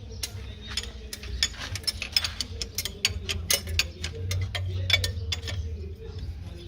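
Hand tools clicking and clinking on metal, in quick irregular strikes over a steady low hum.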